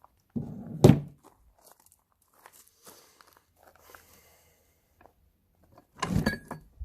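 Parts of an NP271D transfer case being worked apart by hand: a sharp knock about a second in, faint clicks and scrapes, then a second cluster of knocks near the end.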